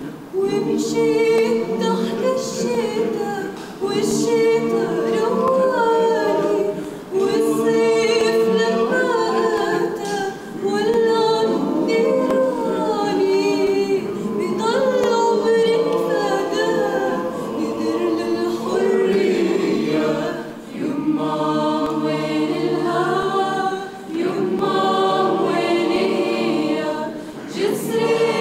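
Mixed choir of men's and women's voices singing an Arabic song a cappella, in phrases of a few seconds with brief breaths between them.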